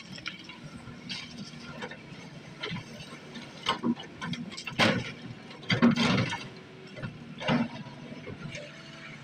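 Kobelco SK210 hydraulic excavator's diesel engine running steadily, with a series of loud clanks and clattering crunches from about a third of the way in as the steel bucket digs and dumps river stones in shallow water.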